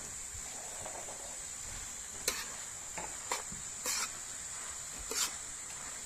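Food frying on a sac griddle with a steady high hiss, and about five sharp scrapes of a utensil stirring it from about two seconds in.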